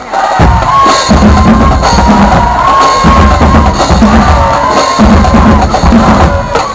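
High school marching band drumline playing: bass drums and snare drums pounding out phrases with brief breaks between them, with a held high note above the drums.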